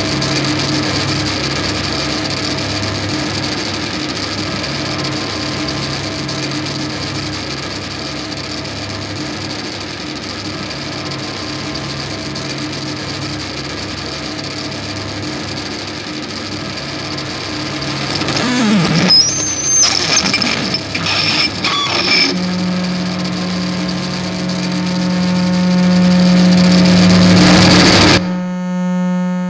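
Loudspeaker feedback instruments (wooden-boxed speakers with microphones) giving a dense buzzing noise layered with sustained feedback tones. Around two-thirds of the way in, brief sliding pitches and crackles break in, then a low steady drone enters and swells; near the end the noise cuts off suddenly, leaving clean held tones.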